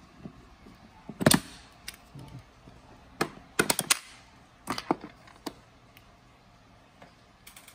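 Sharp plastic clicks and snaps as a flat-blade screwdriver pries at refrigerator trim: one loud snap about a second in, then scattered clicks, several in quick succession around four seconds.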